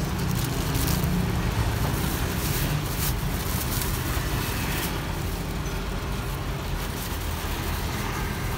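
Steady road traffic rumble, with a few short crinkles of a thin plastic carry bag as cups of iced tea are packed into it.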